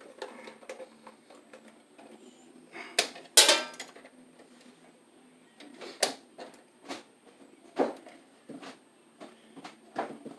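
Hand wire strippers and stiff electrical cable being handled at a metal breaker panel: scattered sharp clicks and knocks, with one louder rasping burst about three seconds in.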